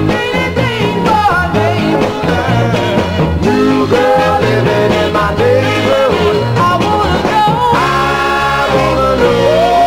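Background music: an upbeat song with a singing voice over a steady beat.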